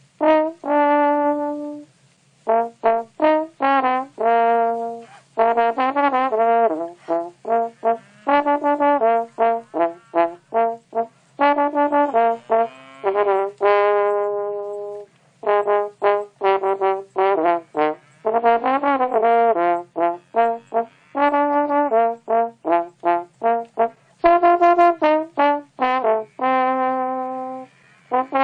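Music: a melody of short, brass-toned notes in quick phrases, with some longer notes held with vibrato.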